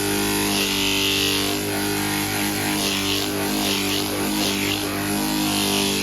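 A motor-driven machine running steadily, a hum with a hiss over it and a few brighter swells, that cuts off suddenly at the very end.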